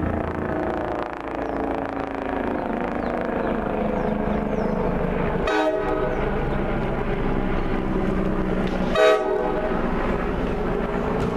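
NJ Transit commuter train approaching with its horn sounding steadily over the rumble of the train. Two short sharp sounds cut in about five and a half and nine seconds in; the second is the loudest moment.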